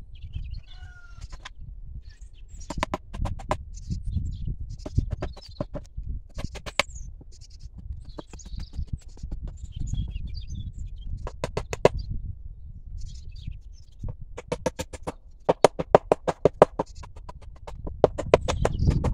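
Repeated short, fast-pulsing calls from farm animals, about six of them and loudest near the end, with small birds chirping and a low wind rumble underneath.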